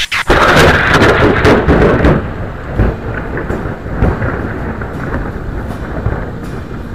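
Thunder: a loud crack and rumble right after a nearby lightning strike, loudest for the first two seconds, then a lower rumble that carries on to the end.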